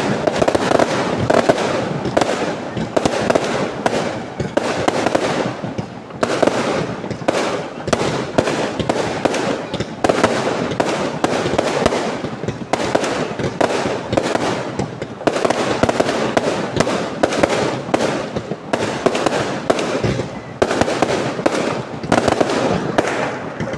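Fireworks going off in a dense, continuous barrage: a rapid crackle of many bangs a second, swelling and easing in waves, with occasional louder reports.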